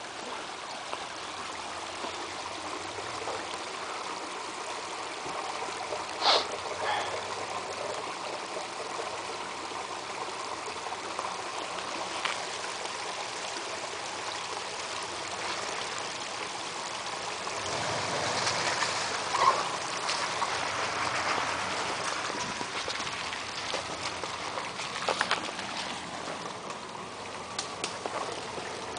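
Water running and trickling steadily down a muddy trail rut, broken by a few sharp knocks.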